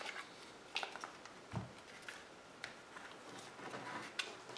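Faint handling noise: a handful of light taps and clicks, spaced about a second apart, as a polymer AR-15 magazine is moved and pressed against a thermal binocular's housing.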